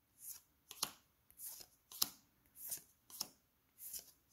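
Trading cards handled one at a time, each a short papery slide followed by a sharp snap as it meets the stack, about once every second and a bit, four times.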